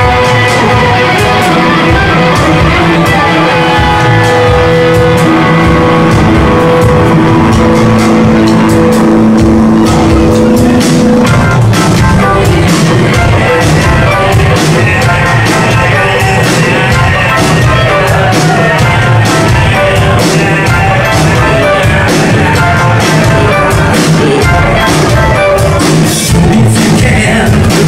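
Live rock band with singers, guitar, keyboards and drums playing. Long sustained notes are held for the first ten seconds or so, then the band moves into a busier rhythmic part.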